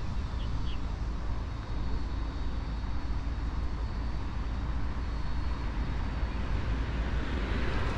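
Steady outdoor city background noise: a constant low rumble with an even hiss over it, like distant traffic, with no single event standing out.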